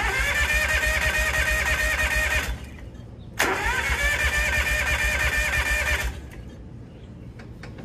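Kawasaki FD731V liquid-cooled V-twin being cranked by its electric starter in two tries of about two and a half seconds each, with a short pause between. The starter whines steadily and the engine turns over in an even rhythm, but it does not catch and run.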